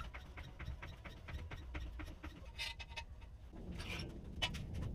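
Faint rapid light ticking with a few sharper metallic clinks from a low-profile floor jack and its long steel handle being worked.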